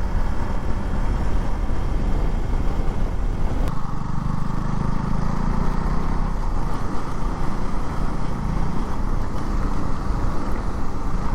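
Riding a KTM Duke 200 motorcycle at speed: steady wind rush on an action camera's microphone, with the single-cylinder engine running underneath. About four seconds in, the low engine note grows stronger for a few seconds, then settles back.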